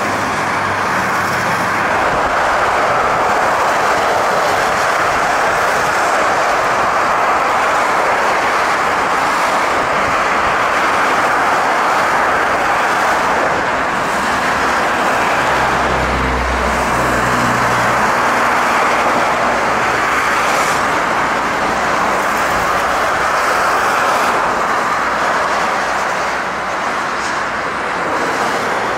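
Twin jet engines of an Airbus A320-family airliner at takeoff power during the takeoff roll and climb-out: a steady, loud rushing noise. A brief low rumble swells about halfway through.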